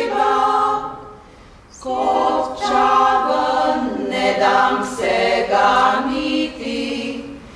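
Women's choir singing a Slovenian folk song a cappella, in several voices. They break off for a breath about a second in, then carry on.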